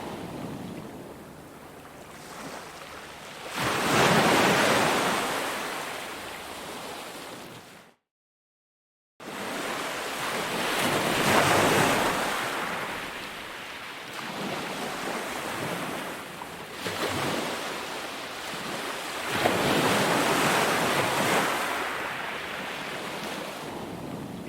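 Ocean waves surging and washing in, the rush swelling and fading in slow surges. The sound cuts out completely for about a second about a third of the way through, then resumes.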